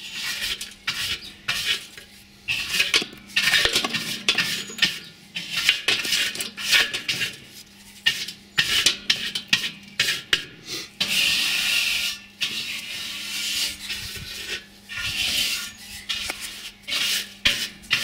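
A stiff brush scraping over the metal of a barbecue in repeated strokes, about one a second, with a longer unbroken scrape near the middle. It is sweeping out ash and burnt-on grease.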